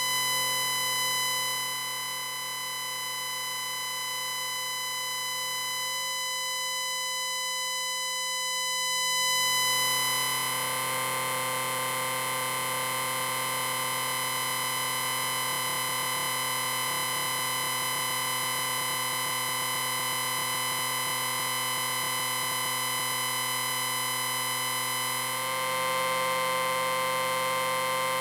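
Science-fiction electric ring sound effect: a long, steady electric ringing tone with many overtones stacked above it. It starts suddenly, and about ten seconds in a hissing, crackling layer joins and makes it brighter; it shifts slightly a few seconds before the end.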